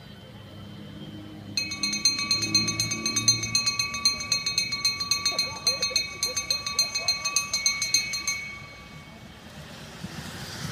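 A hand bell rung rapidly, about five strokes a second, starting suddenly and ringing out after about seven seconds: the lap bell of an inline speed skating race, rung as the pack comes round. Near the end the skaters' wheels hiss past on the concrete track.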